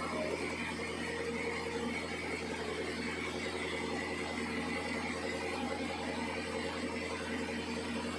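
Sawmill machinery running steadily: an even mechanical hum that holds one pitch without pauses.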